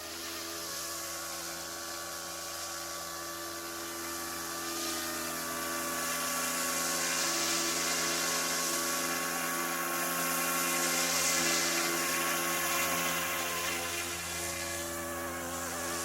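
Yuxiang F09 Black Hawk RC helicopter in flight: a steady electric motor whine with rotor hum, its pitch wavering slightly with throttle. It grows louder through the middle and fades again near the end.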